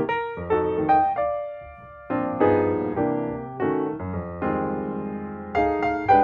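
Background piano music: chords and melody notes, each struck and then fading, with a short pause about two seconds in.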